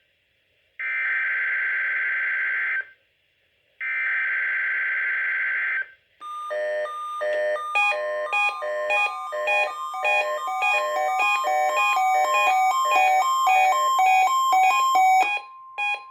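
NOAA Weather Radio SAME test signal: two bursts of buzzing digital data tones, each about two seconds long, the repeats of the coded header for a Required Weekly Test. About six seconds in, a weather alert receiver's alarm starts: a fast run of electronic beeps in shifting pitches, with a steady tone entering beneath it about two seconds later.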